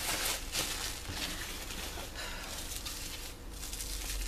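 Plastic packaging crinkling and rustling in the hands as a parcel is unwrapped, in irregular scrunches.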